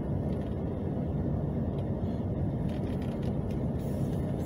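Steady low rumble of a vehicle's engine and tyres, heard from inside the cabin while it drives slowly.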